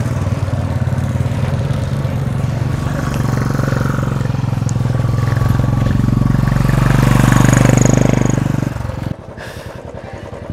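Royal Enfield motorcycle's single-cylinder engine pulling uphill on a rough dirt track, growing louder about seven seconds in. Near the end it drops suddenly to a quieter engine sound.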